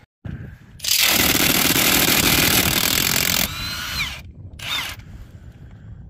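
Handheld cordless power tool run in bursts: one long loud burst of about two and a half seconds, then two short bursts, each with a rising whine as the motor spins up.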